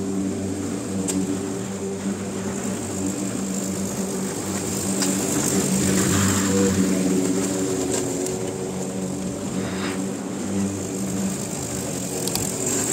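Petrol push lawn mower's small engine running steadily as it is walked across the grass, with a few faint clicks over it.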